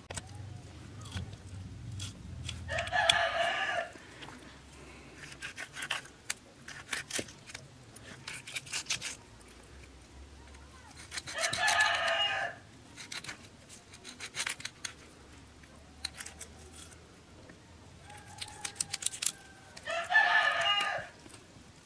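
A rooster crows three times, each call about a second long and roughly eight seconds apart. Between the crows, short clicks and scrapes from a knife scaling and cutting a fish on a wooden chopping block.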